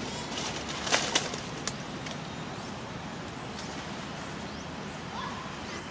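Steady outdoor background noise with two sharp clicks about a second in, and a few faint short chirps.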